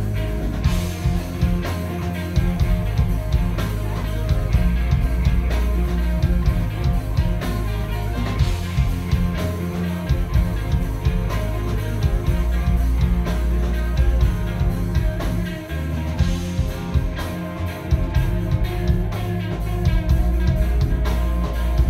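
Live rock band playing: electric guitars with held notes over drums, with a heavy low end.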